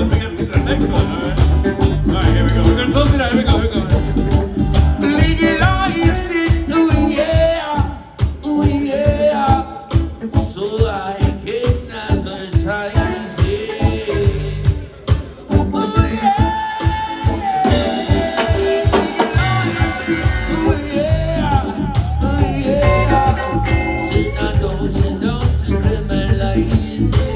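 Live reggae jam band playing with a steady beat: drum kit, electric and acoustic guitars, and singers at microphones.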